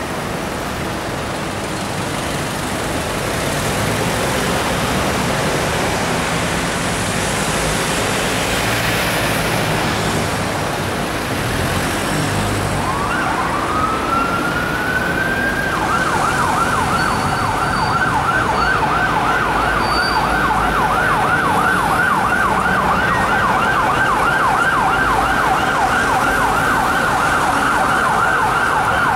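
Steady city traffic noise, then about halfway in a Ford Transit police van's siren comes on: a rising wail that switches after a few seconds to a fast, continuous yelp.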